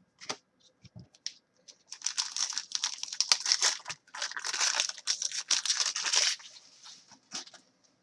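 A trading card pack's foil wrapper being torn and crinkled by hand, for about four seconds, after a few light clicks of cards being handled.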